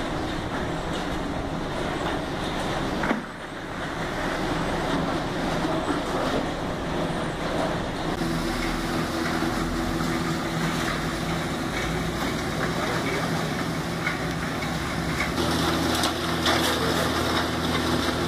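Ore-processing plant machinery running steadily: electric motors humming and concentrating tables shaking with water washing over them. The mix of hum and noise changes abruptly a few times.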